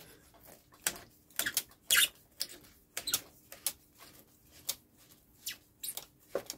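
Rubber handlebar grip being twisted and worked off a chrome motorcycle handlebar, giving a string of short, irregular clicks, the loudest about two seconds in. The grip is not glued on, so it turns freely.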